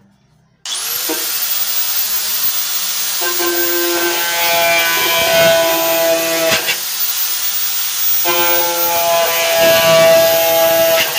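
Angle grinder fitted with four nails in place of a disc, switched on about half a second in and spinning up to a steady high-speed run as it bores into a plastic bowl. Twice a pitched squeal rides on top for about three seconds as the nails cut the plastic.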